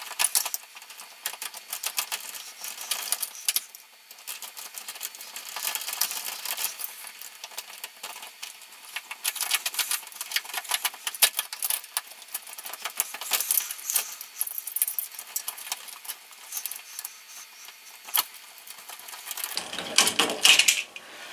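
Small metal clicks and ticks of a screwdriver working at a brass doorknob to release and pull the knob off, with a louder metal clatter near the end.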